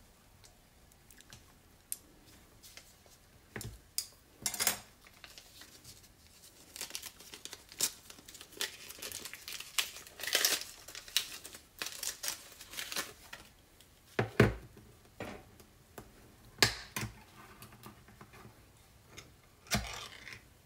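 Paper wrapper crinkling and tearing as it is peeled off a small tin of tuna pâté, in bursts of crackling, with a few sharp knocks in the second half.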